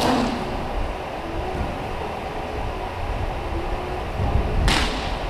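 Two sharp knocks, one at the start and one near the end, over a steady low rumble.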